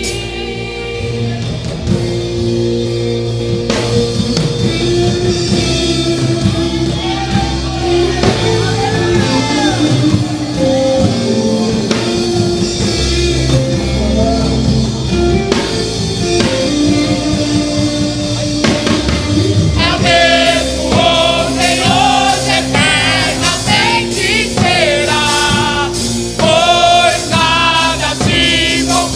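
Gospel choir singing with a band that includes a drum kit. About twenty seconds in, voices with wide vibrato come to the fore over the held accompaniment.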